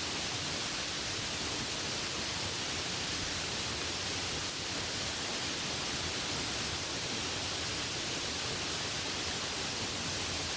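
Light rain falling steadily, an even hiss without distinct drops or changes.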